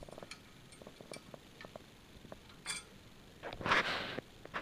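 Small scattered clicks and clinks of metal being handled, then, about three and a half seconds in, a louder rustling rattle lasting under a second as a thin piece of 18-gauge sheet steel is picked up.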